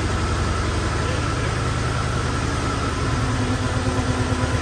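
Engine of a 1994 Chevrolet S10 pickup idling steadily after five years of sitting uncovered, its beat becoming more distinct about three and a half seconds in.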